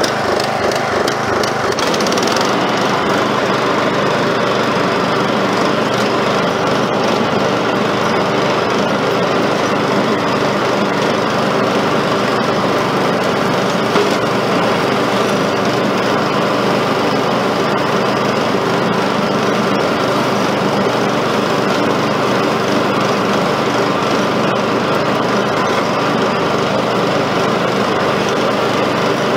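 Ride-on mower engine running steadily under load as it cuts through tall, overgrown grass and weeds, its note shifting about two seconds in. A single brief knock about halfway through.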